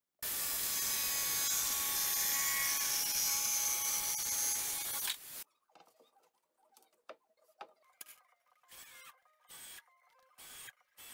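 A power saw cutting a plywood sheet, a steady loud noise that stops abruptly about five seconds in. Then the board is handled, and a cordless drill drives screws into the plywood shelf in short whirring bursts, about one a second.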